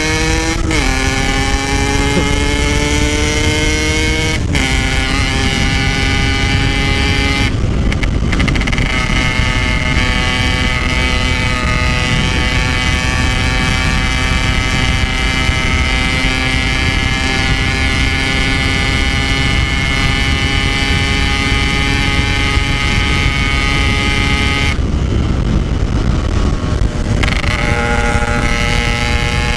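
Yamaha RX King two-stroke motorcycle engine running under way, fitted with a standard-style exhaust. Its pitch climbs through a few gear changes in the first several seconds, then holds steady at cruising speed. About 25 seconds in it drops off briefly, then picks up again.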